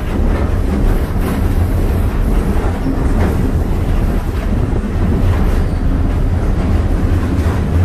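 Passenger train hauled by steam locomotive No. 2023 running along the track, heard from on board: a steady, loud low rumble of wheels on rails with rattling.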